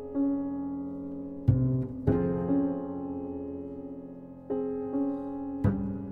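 Slow jazz piano chords, each struck and left to ring and fade, several with deep low notes under them.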